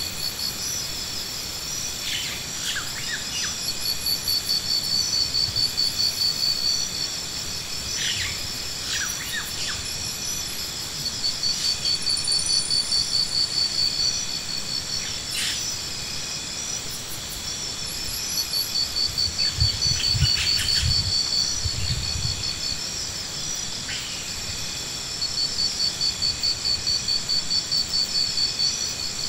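Insects trilling, a high pulsed buzz that swells and fades in bouts several seconds long, with a few brief bird chirps. A few dull low thuds come about two-thirds of the way through.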